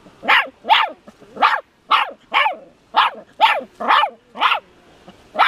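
Young miniature dachshund barking repeatedly at a box turtle: about ten short, high yaps, roughly two a second, each falling in pitch.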